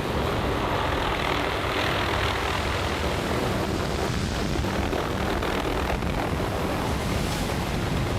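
Helicopter engine and rotor running steadily overhead.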